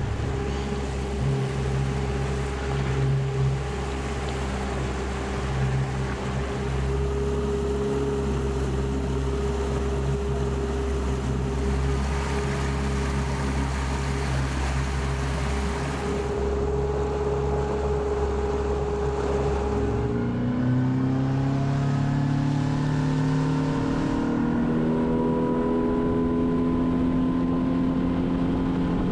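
Outboard motor on a small skiff running at a steady speed over the rush of water along the hull, then throttling up about two-thirds of the way in, its pitch rising over several seconds before holding steady higher.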